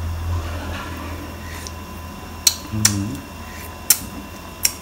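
A person sipping hot soup from a metal ladle, with a few sharp clicks of lips smacking as he tastes it and a brief murmur about halfway through.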